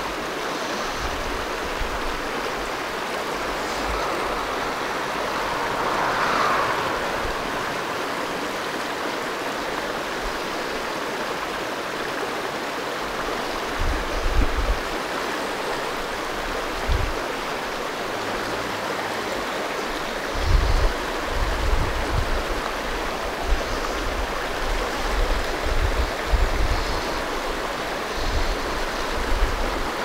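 Shallow rocky creek running over a riffle: a steady rush of water. From about halfway on, irregular low thumps bump the microphone.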